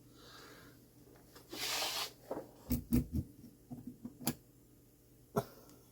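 A short breathy burst about two seconds in, then a scattering of small sharp clicks and taps from clock movement parts and tools being handled.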